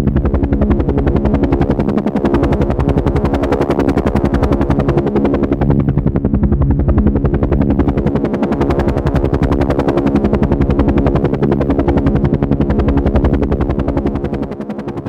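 Helicopter rotor running steadily: a rapid, even chopping of the blades over a constant engine drone. The level briefly drops near the end.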